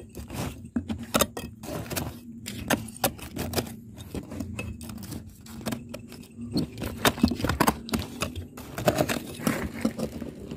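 Rapid, irregular clicking, rattling and scraping, many sharp ticks a second, with a faint steady hum underneath.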